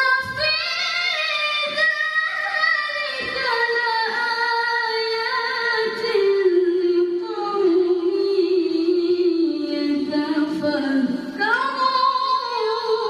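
A woman's unaccompanied melodic Quran recitation (tilawah), sung into a microphone by a qoriah: long held notes with ornamented runs, the line sinking lower through the middle and rising sharply again near the end.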